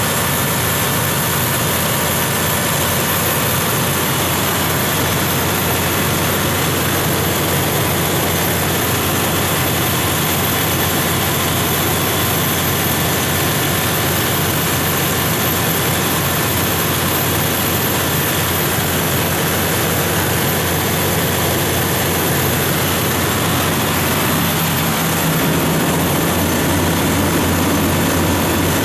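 Cummins QSM11-G4 inline-six diesel engine of a 300 kW standby generator set running steadily at governed generator speed, a loud, even drone with no change in speed.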